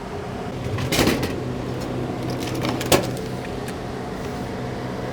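Vending machine humming steadily during a purchase, with a thump about a second in and a sharp knock near three seconds in.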